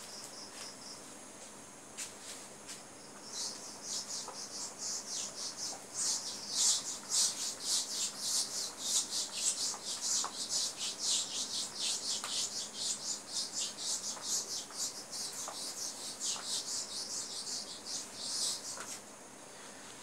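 Whiteboard eraser rubbed back and forth over a whiteboard in quick strokes, about four a second, wiping it clean. The rubbing starts about three seconds in and stops near the end.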